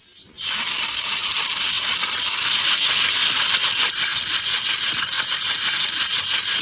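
A steady crackling hiss that starts abruptly about half a second in.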